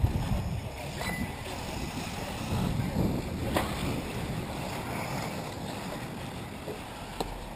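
Wind rumbling on the microphone over the faint running of 1/8-scale electric RC buggies on a dirt track, with a few light clicks.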